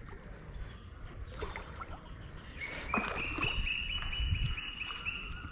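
A baitcasting reel being cranked to retrieve a lure: a steady high whir with rapid, even clicking that starts about halfway in.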